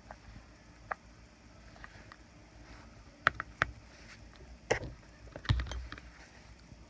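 Handling noise: scattered sharp clicks and knocks of small hard objects being handled and set down, with a quick cluster of clicks a little after three seconds in and the loudest, a dull knock with a low thud, about five and a half seconds in.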